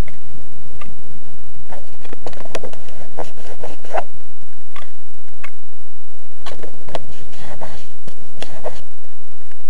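Handling noise on a model airplane's on-board camera: scattered clicks and scrapes, bunched a couple of seconds in and again past the middle, over wind buffeting the microphone. No motor is running.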